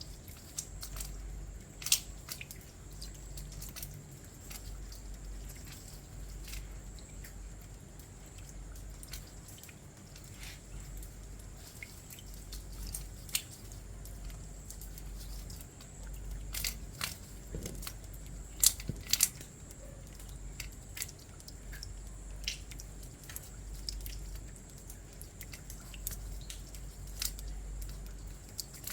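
Rain at night: scattered raindrops dripping and splatting close by as irregular sharp ticks over a low background, with a few louder splats about two seconds in and a cluster past the middle.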